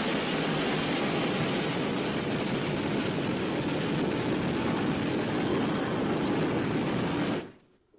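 A loud, steady rushing noise with no distinct tones, which cuts off abruptly about seven and a half seconds in.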